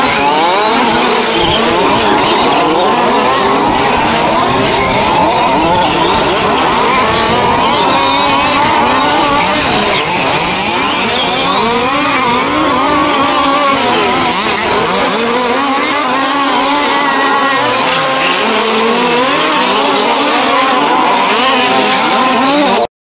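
Several two-stroke petrol engines of 1:5-scale RC race cars running together, their pitch rising and falling as they rev up and back off. The sound cuts off suddenly near the end.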